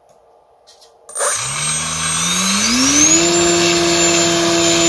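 Electric motor and 7x5 propeller of a small foam RC aerobatic plane throttled up about a second in. Its pitch rises for about two seconds, then it runs steady at full throttle with a high whine above the prop noise, drawing about 18 amps.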